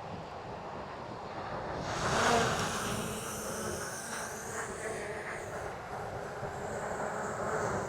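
DJI Mini 4 Pro quadcopter's propellers whirring, with a steady whine over wind noise, rising in level about two seconds in.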